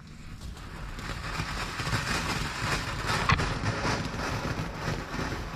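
Garden firework fountain spraying: a steady hiss that builds about a second in, with scattered crackles and one sharper crack midway.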